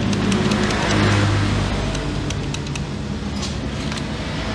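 A motor vehicle engine running steadily, with its hum swelling about a second in. A few light clicks sound over it.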